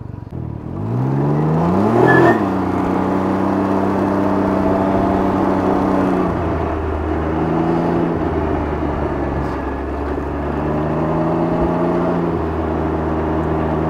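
Can-Am Ryker 900's three-cylinder engine revving up as the trike pulls away about a second in. It then runs at a steady pitch, easing off and picking up again a few times.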